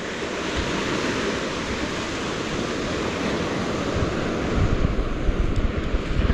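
Small surf breaking and washing up a shingle beach of pebbles and gravel, a steady rushing wash. Wind buffets the microphone with low rumbling gusts that grow stronger in the second half.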